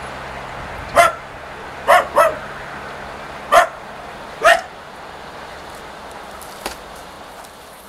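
A dog barking five times, two of the barks close together, over the fading steady noise of a passenger train moving away.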